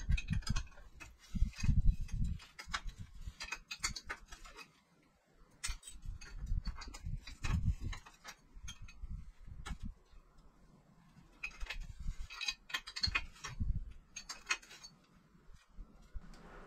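Metal clicking and clunking in irregular bursts as a tool turns a stiff bottom bracket cup out of a steel bicycle frame's threads, with a pause about five seconds in.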